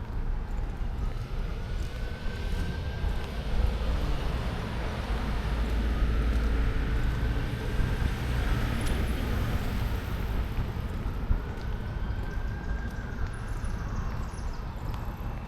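Distant emergency-vehicle siren on a slow wail, rising and falling every four or five seconds, over a steady low rumble of road traffic.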